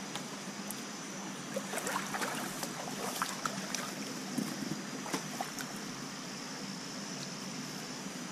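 Shallow creek water trickling over rocks, with a few light knocks and splashes between about two and five seconds in.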